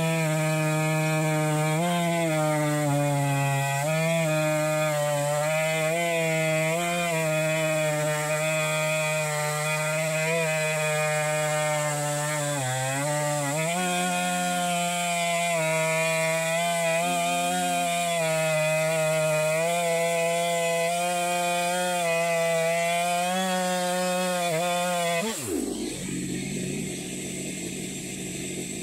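Gas chainsaw in an Alaskan chainsaw mill running at full throttle, ripping a 1-inch board lengthwise from a cedar flitch. Its steady high engine note dips in pitch under load and recovers, then drops away sharply near the end as the cut is finished.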